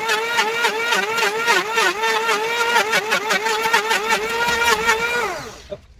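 Handheld electric woodworking power tool running with its motor pitch dipping repeatedly as it bites into the wood. It is switched off a little after five seconds in and winds down to a stop.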